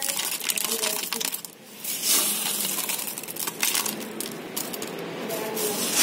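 Hailstones dropped by hand into a tank, clicking and clattering onto a bed of hail, with a short lull about a second and a half in.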